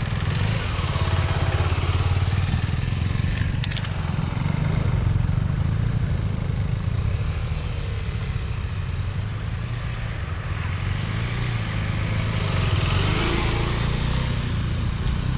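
Several KTM Adventure motorcycles' single-cylinder engines running at low revs on a grassy off-road trail, with a steady low drone that swells as one bike comes close near the end. One sharp click a few seconds in.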